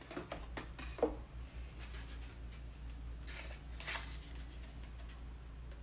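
A cardboard-and-plastic blister-card package of nail glue being handled: a few short rustles and crinkles of the plastic and card, the loudest about four seconds in.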